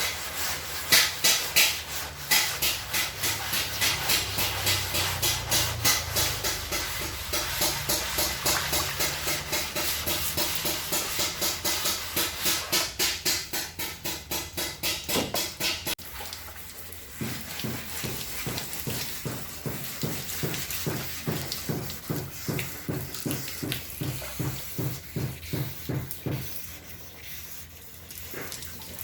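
Sandpaper rubbed back and forth by hand over a car's engine hood to level the surface, a quick steady rhythm of rasping strokes. The strokes turn softer about halfway through.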